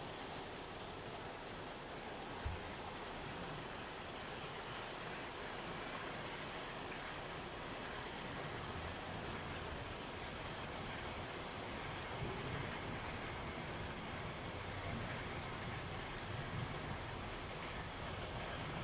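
Heavy rain pouring down onto wet ground and standing water, a steady hiss. A single short thump sounds about two and a half seconds in.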